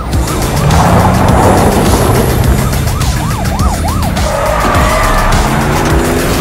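Car-chase sound effects: engines running hard under a police siren that yelps in quick rising-and-falling sweeps about three seconds in, then wails more steadily. A hiss like tires skidding comes about a second in.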